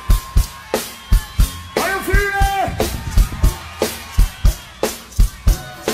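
Live reggae band playing, led by a drum kit keeping a steady beat of kick and snare hits. A short vocal phrase comes over the music about two seconds in.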